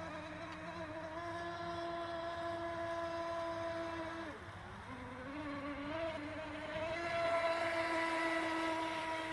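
HobbyKing Swordfish RC speedboat's 1800KV brushless electric motor whining at speed, a steady high buzz. Its pitch drops briefly about four seconds in, then climbs back and holds, loudest near the end.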